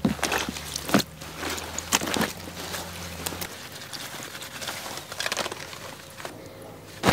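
Wet clothes being scrunched, sloshed and wrung out by hand in a plastic tub of water: irregular splashes, drips and wet cloth squelching.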